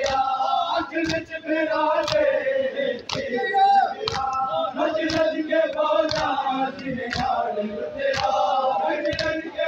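Crowd of men chanting a Muharram lament in unison, with a sharp slap about once a second from chest-beating (matam) in time with the chant.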